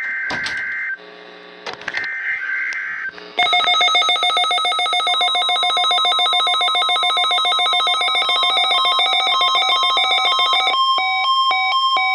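NOAA Weather Radio weekly test signal. Two bursts of warbling digital SAME header data come first, each about a second long. About three seconds in, a loud, rapidly pulsing alert alarm starts, and the steady single-pitch weather radio warning alarm tone comes in under it. Near the end the pulsing changes to slower on-off beeps.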